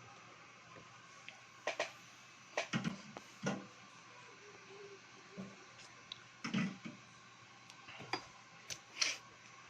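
Irregular light clicks and knocks, about eight over several seconds, over a steady background hiss: small tools and parts being handled on a phone-repair workbench.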